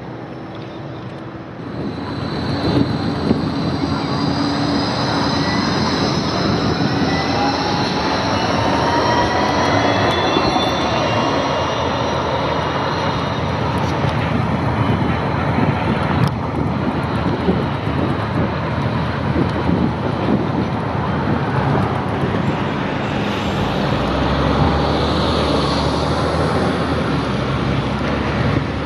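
Bombardier Flexity 2 light-rail tram running by on its tracks, with rail and running noise and an electric-drive whine that glides up and down in pitch. The sound grows louder about two seconds in.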